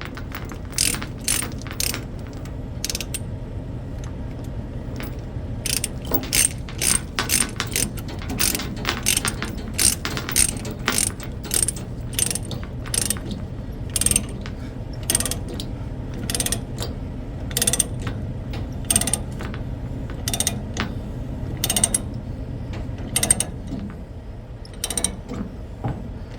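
Ratchet tie-down being cranked to tighten a load securement on a trailer: a long series of sharp ratchet clicks in quick runs with short pauses, over a steady low hum.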